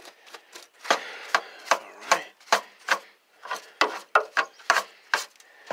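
A cheap 3-inch paintbrush sweeping pine straw and grit out of a car's cowl around the windshield wiper area, in quick scratchy strokes about three a second.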